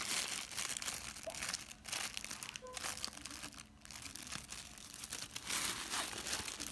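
Plastic Halloween treat bag crinkling as small hands grip and pull it open, in irregular bursts with a short lull of about a second near the middle.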